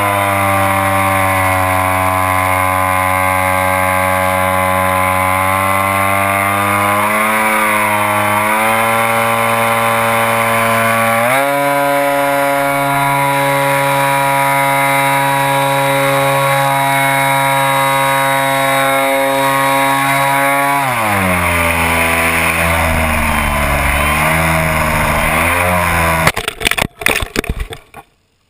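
RC model airplane's motor and propeller buzzing, heard from on board, its pitch shifting with the throttle. About two-thirds of the way through the pitch falls away, then the sound breaks up choppily and cuts off near the end.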